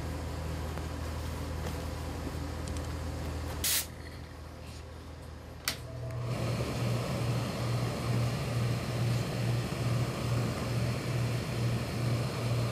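Tailor's pressing equipment starts up: after two sharp clicks, a steady fan-like hum with a pulsing low drone sets in about six seconds in, as a hanging steam iron is pressed onto the coat lining.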